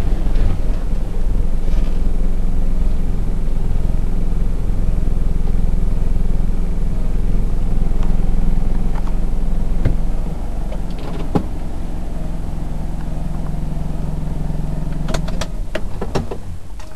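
Car engine running steadily, heard from inside the cabin, a low even hum that drops a little in level about ten seconds in, with a few light clicks.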